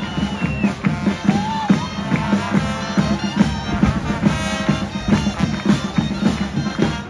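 Procession music of reed wind instruments over a steady held drone note, with frequent drumbeats.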